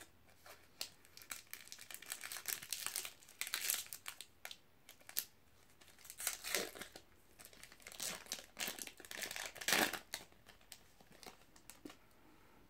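Foil wrapper of a trading card booster pack being torn open and crinkled in the hands, in irregular bursts of crinkling, loudest about four seconds in and again near ten seconds.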